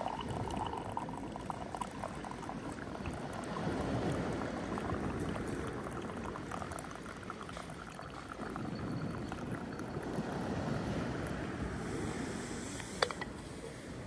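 Drink poured in a thin stream from a steel vacuum flask into a mug, trickling, while waves wash on the pebble shore and swell in and out behind it. A single sharp click comes near the end.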